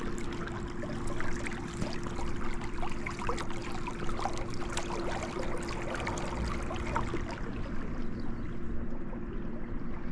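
Water lapping and trickling around a fishing pontoon, with many small splashes and ticks over a steady low hum.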